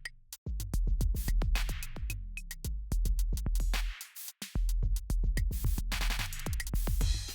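Background electronic music with a drum-machine beat over deep bass, dropping out briefly twice.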